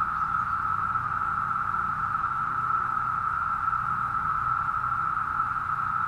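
Chorus of Brood V periodical cicadas: a steady, unbroken, high buzzing drone that does not rise or fall, with a faint low hum beneath it.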